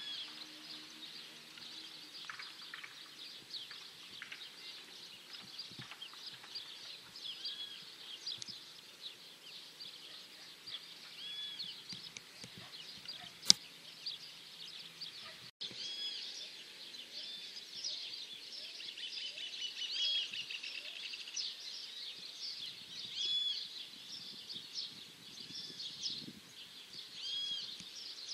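Outdoor ambience full of small birds chirping and calling over and over, denser in the second half, over a faint low hum in the first half. A single sharp click comes about halfway through, and the sound drops out briefly about two seconds later.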